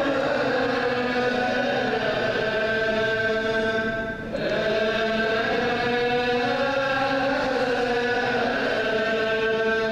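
Ge'ez (Ethiopic-rite) liturgical chanting: long held notes that slowly rise and fall, with a brief break about four seconds in.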